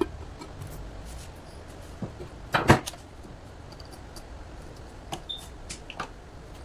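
A few scattered knocks and clicks of hard objects being handled, the loudest a short clatter about two and a half seconds in.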